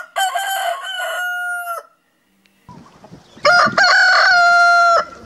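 Two roosters crowing one after the other. The first crow fills the first two seconds and ends on a long held note; after a short pause a second, louder crow comes about three and a half seconds in, also ending on a long held note.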